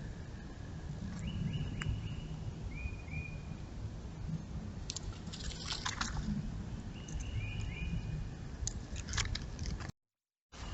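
Outdoor trail-camera audio: a steady low rumble with a few short, falling chirps and scattered clicks and rustles. The sound cuts out abruptly for about half a second near the end, where one clip ends and the next begins.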